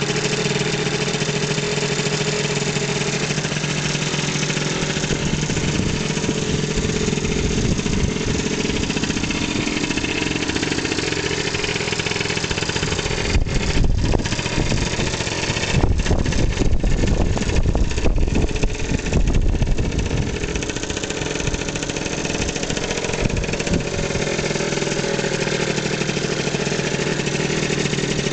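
Yamaha BWS scooter's small two-stroke engine idling steadily. For several seconds around the middle, a louder, uneven low rumble runs over the engine sound.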